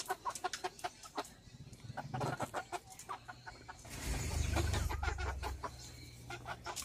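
Ayam kampung (Indonesian village chickens) clucking in a coop, short scattered calls mixed with small clicks and taps. A low rumble comes in about four seconds in and lasts a second or so.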